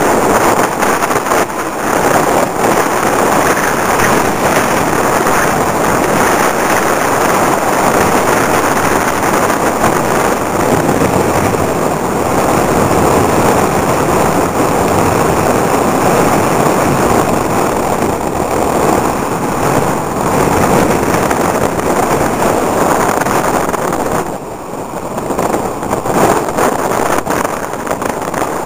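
Strong wind howling across the microphone: a loud, continuous, gusting rush of wind noise that eases briefly near the end.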